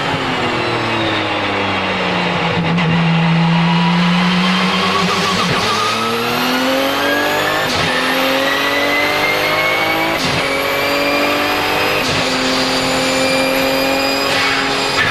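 Porsche 997 GT2 RSR's twin-turbo 3.9-litre flat-six, heard from inside the car, slowing off throttle, then accelerating hard through the gears. The sequential gearbox makes three quick upshifts, and a high turbo whistle rises with each gear.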